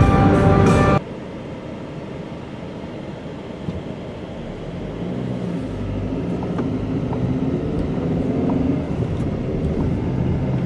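Music for about the first second, then a car's engine and tyre noise heard from inside the moving car. The noise gradually grows louder, and the engine's pitch rises and falls in the middle.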